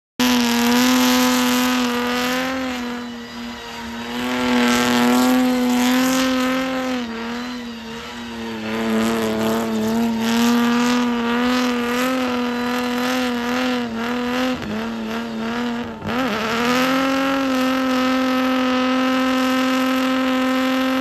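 Jaguar Mk1's straight-six engine held at high revs through a burnout, its pitch nearly steady with slight wavers, dipping briefly about three-quarters of the way through before climbing back up. The spinning rear tyre adds a hiss of tyre noise under it.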